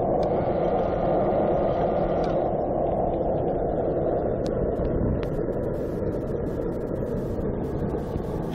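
Prototype pellet burner running at full burn: a loud, steady rushing of air and flame, with scattered faint clicks in the second half.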